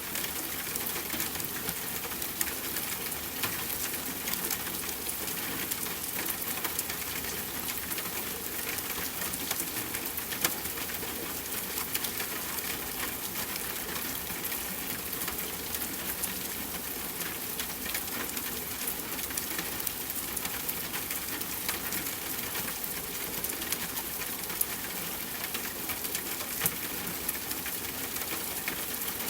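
Steady rainfall, with a dense patter of small drops and an occasional louder drip.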